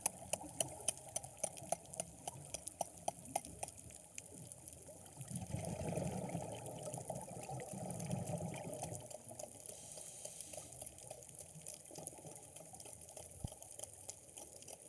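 Underwater: a scuba diver's exhaled bubbles gurgling up from the regulator, loudest from about five to nine seconds in. A run of sharp clicks in the first few seconds.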